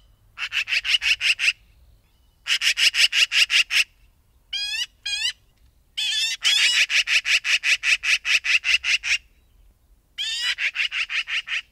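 Eurasian magpie chattering in four runs of rapid, evenly spaced notes, about eight a second. Two short single calls come between the second and third runs. The longest run lasts about three seconds.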